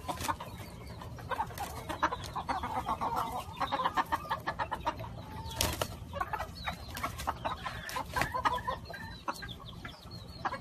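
Roosters fighting: a flurry of wing flaps and scuffling clicks, with short clucking calls throughout. There is one louder sharp knock about halfway through.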